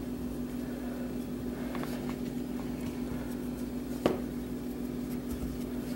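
A steady low hum throughout, with faint soft sounds of hands folding and pressing puff pastry dough on a floured wooden board, and one light knock about four seconds in.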